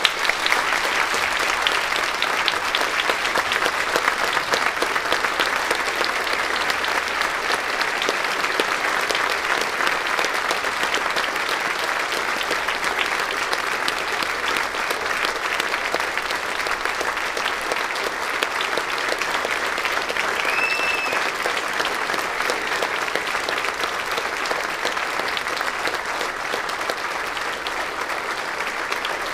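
Audience giving a sustained ovation, many hands clapping at an even level. One short high note stands out about two-thirds of the way through.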